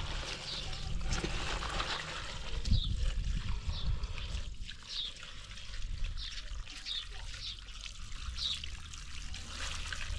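Water from a hose trickling and splashing into a metal pot of cut cauliflower, red cabbage and carrots as hands turn and rinse the vegetables. A short high chirp repeats about once a second.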